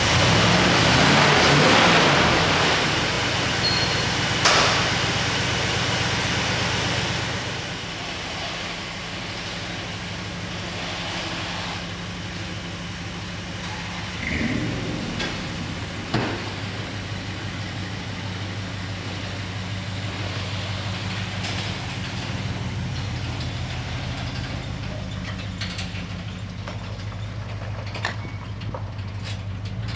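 Early-1970s Ford F-250 pickup's engine running, louder for the first several seconds and then settling to a steady idle, with a couple of sharp clunks from the truck.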